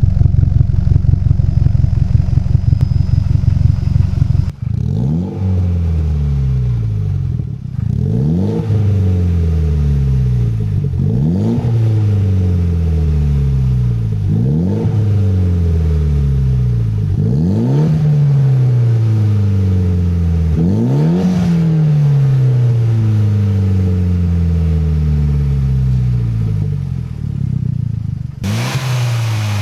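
Mitsubishi Lancer Evolution X's turbocharged 2.0-litre four-cylinder through an HKS Hi-Power single-exit exhaust: idling, then revved six times, each rev rising quickly and falling back slowly. A hiss comes in near the end.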